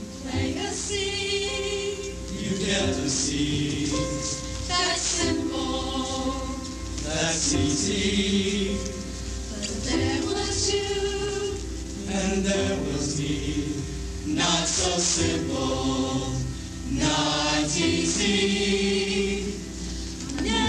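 Mixed-voice high-school show choir singing a show-tune medley, many voices together on held notes with vibrato.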